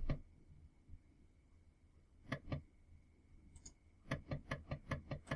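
Floppy drive head stepper motor clicking: a few isolated clicks, then from about four seconds in a regular ticking at roughly four to five clicks a second, not a pitched note. A faint steady high tone sits underneath for the first four seconds.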